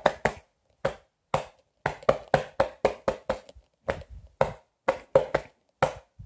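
A hand slapping a belly again and again, about twenty sharp slaps in an uneven rhythm, done to imitate clapping.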